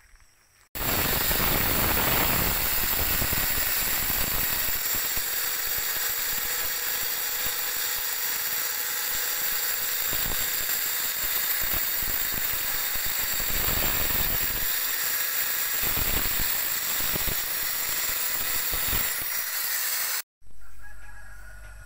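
Angle grinder with a thin cut-off disc cutting through a painted sheet-metal roof fascia, running steadily with a high whine and hiss. It stops abruptly near the end.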